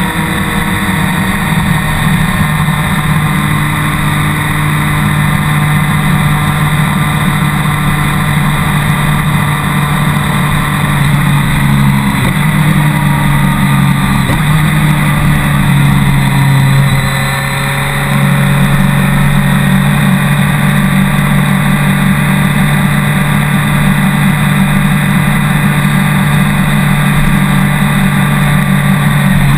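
BMW K1200R Sport's inline-four engine running under way at road speed, over steady wind and road noise. The engine note shifts pitch a few times, and the sound dips briefly a little past halfway before steadying again.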